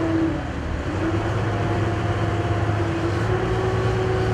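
River ferry's engine running steadily: a continuous low drone with a held hum on top.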